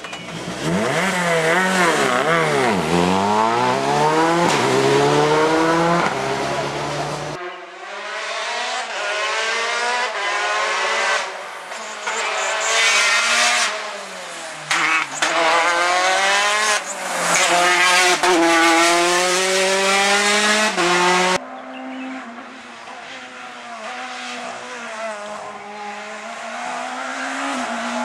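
Rally car engines at full throttle, pitch climbing and dropping over and over as the drivers accelerate, shift gear and lift off for corners. The sound switches abruptly twice, about seven seconds in and again about twenty-one seconds in, from one car to the next.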